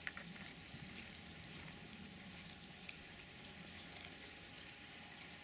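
Faint, steady patter of light rain, with scattered small ticks.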